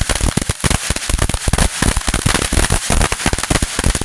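Firework going off in a loud, rapid, unbroken run of sharp cracks and pops, many to the second, like a string of firecrackers.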